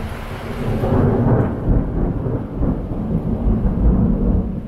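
Rolling thunder during rain: a deep rumble swells about a second in and dies away near the end, over steady rain.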